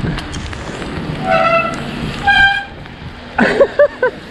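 A horn giving two short toots about a second apart, then a quick run of wavering, warbling tones near the end.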